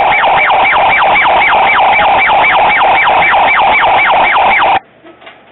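Electronic yelp siren sweeping up and down in pitch at about three to four cycles a second, cutting off suddenly near the end.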